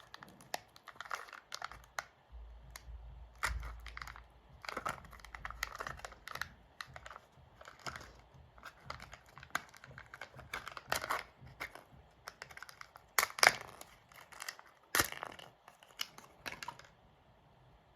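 Kinder Joy surprise egg being unwrapped and opened by hand: the wrapper crinkles and tears, and the plastic egg and toy capsule give sharp clicks. The loudest clicks come about two-thirds of the way through, and the handling stops about a second before the end.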